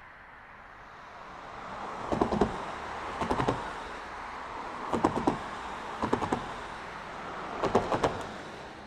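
Footsteps crunching on gravel ballast: five heavy crunches spaced a second or more apart, over a steady rushing noise.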